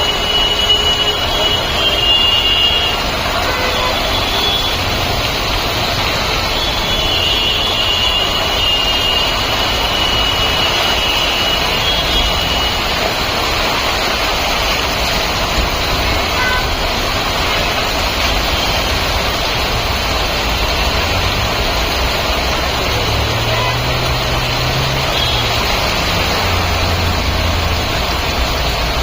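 Steady rush of heavy rain and running water mixed with road traffic, with a vehicle engine's low hum from about three quarters of the way in.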